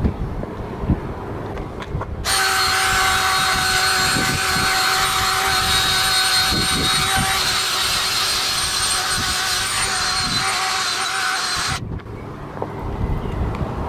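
Power drill spinning a wire-brush attachment against asphalt: a steady motor whine over the scrape of the bristles. It starts about two seconds in and stops suddenly near the end.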